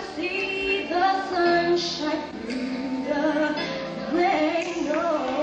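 A woman singing a slow melody, with long held notes that bend in pitch.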